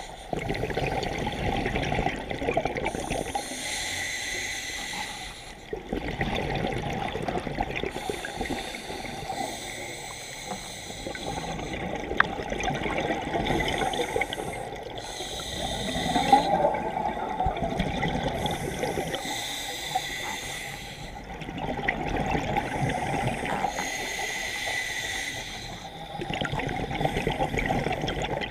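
Scuba regulator breathing underwater: a short hissing inhale, then a long bubbling exhale. The cycle repeats about five times.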